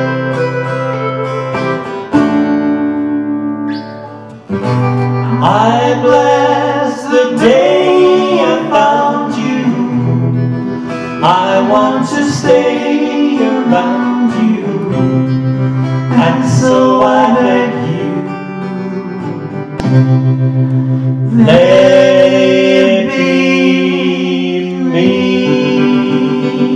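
Two acoustic guitars playing a country-style song, with voices singing over them from about five seconds in. The opening seconds are guitar chords alone.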